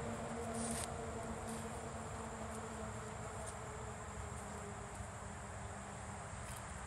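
Steady background of insects: a constant high-pitched whine over a faint low hum, with a few faint ticks.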